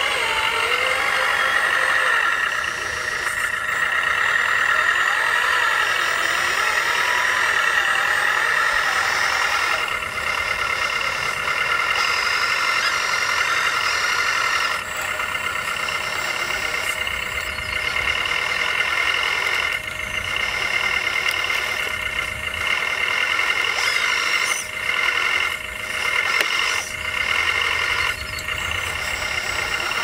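1/14-scale RC construction machines running, a steady high-pitched whine from their small motors and drive gear. It dips and breaks off briefly several times in the second half.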